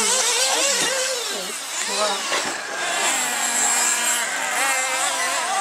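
Several nitro RC buggies and truggies racing on a dirt track, their small engines whining high and revving up and down as they go through the corners.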